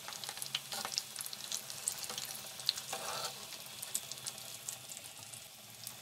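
Breaded potato-and-mince kababs shallow-frying in oil on low-to-medium heat: a steady sizzle with many small crackling pops.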